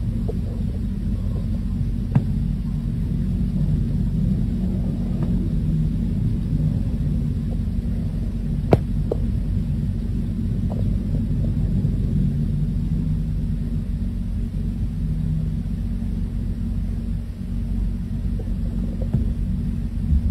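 Steady low rumble with a few sharp clicks, the loudest about nine seconds in.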